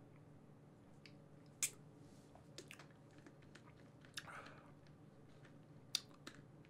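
Near silence with faint mouth sounds after a drink from a bottle: a few soft clicks and smacks and a short breath about four seconds in, over a low room hum.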